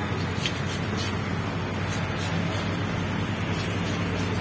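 Knife scraping and cutting along a parrotfish's skin on a wooden block, with short scrapes about twice a second. The scrapes sit over a steady hum of background noise.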